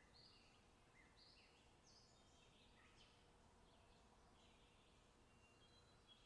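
Faint chirping of small songbirds: short calls from several birds follow each other and overlap, over a faint low background noise.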